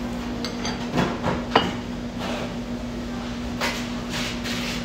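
Eating sounds at a meal: utensils knock and clink against dishes, with one sharp, ringing clink about a second and a half in. A few short noisy bursts of eating follow near the end.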